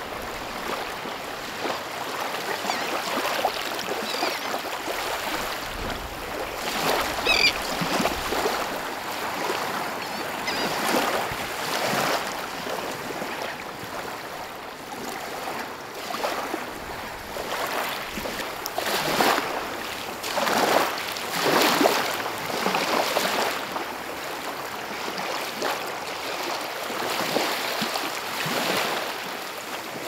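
Small waves lapping and washing in at the water's edge, rising and falling in repeated swells, with the strongest washes around twenty seconds in.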